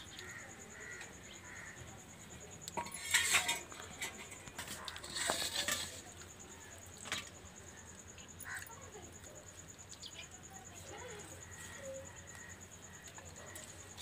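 Eating by hand from a stainless steel plate: light clicks and scrapes of fingers and food against the steel, with two louder scraping noises about three and five seconds in.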